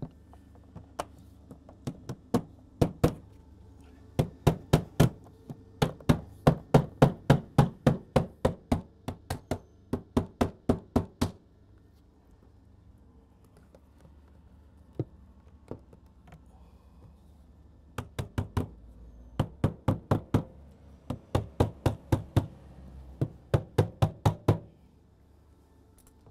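Glazing mallet tapping uPVC glazing beads into a door panel's frame to seat them. The knocks are sharp and come in quick runs of about three a second. A pause of several seconds falls midway, then a second run.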